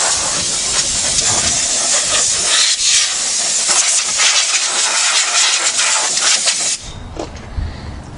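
Compressed-air blow gun blasting a steady loud hiss to blow mouse nest debris and droppings out of the vehicle; the blast cuts off suddenly near the end.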